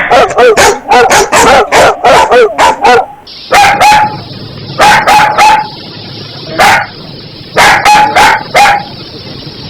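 Several dogs barking: a dense flurry of loud barks for about the first three seconds, then single barks and short runs of two or three at irregular gaps, over a steady hiss.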